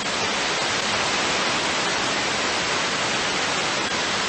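Steady hiss of radio static from an air traffic control radio feed, heard between transmissions.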